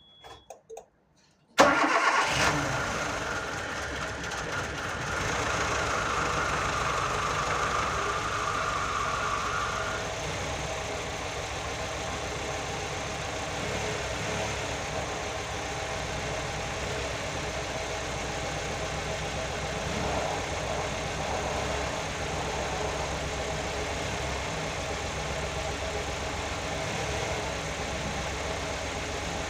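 Nissan GA16DE 1.6-litre four-cylinder engine cranking and catching about a second and a half in, on its first start after a repair, then idling steadily. A higher whine runs over the first several seconds after it starts and stops about ten seconds in.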